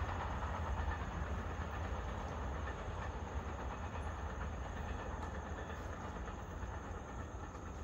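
Amtrak passenger train running away down the track: a steady low rumble of the train on the rails that slowly fades as it draws off into the distance.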